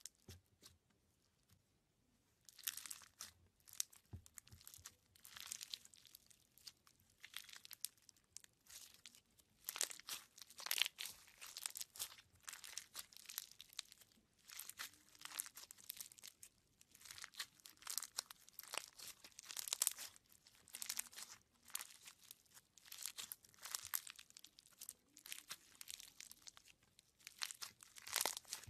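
Slime packed with clear beads being squeezed and kneaded by fingers, giving irregular waves of crackling and popping. It is near-quiet for the first two seconds.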